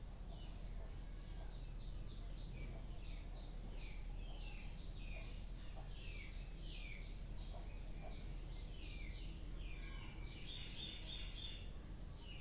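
Small birds chirping: quick falling chirps repeated a few times a second, thickening into a busier burst of calls about ten seconds in, over a low steady background rumble.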